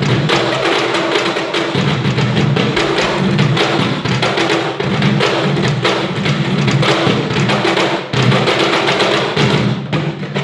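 Peruvian cajón drumming live: a fast, dense rhythm of deep bass tones and sharp slaps on the wooden box.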